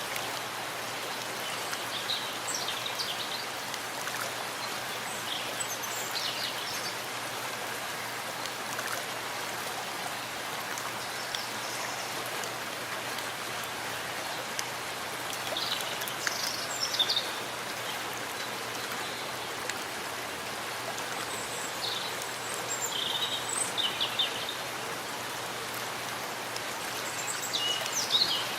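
Steady rain falling in a forest, an even hiss, with short high bird chirps now and then, the clearest about 16 to 17 seconds in, again about 23 to 24 seconds in, and near the end.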